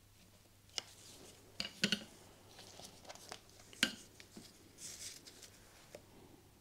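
Scattered metallic clicks and knocks as a Royal Enfield J-series engine's unbolted aluminium side cover is worked loose from the crankcase by hand: a quick cluster of taps a couple of seconds in and the sharpest knock near the middle.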